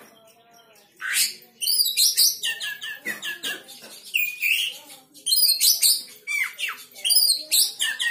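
Oriental magpie-robin singing: after a short pause, about a second in, a continuous run of quick, varied whistled notes mixed with scratchy chattering phrases.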